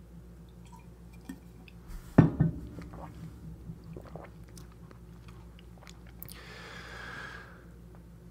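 Coffee being drunk close to the microphone: a sharp knock of the mug about two seconds in, small wet mouth clicks and swallows, and a hissing sip or breath about six seconds in, over a faint steady electrical hum.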